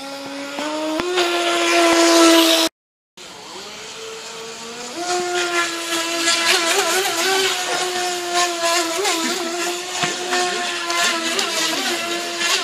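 Electric motor of a small radio-controlled V-hull racing boat whining as it runs across the water, its pitch climbing and wavering as the throttle changes. The sound cuts out completely for about half a second around three seconds in.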